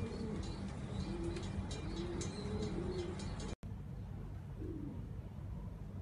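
Homing pigeons cooing, several soft rolling coos one after another. About three and a half seconds in, the sound drops out for a moment and comes back quieter, with one more coo.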